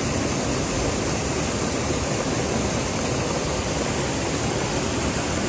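Waterfall and its stream rushing, a steady even hiss of falling water.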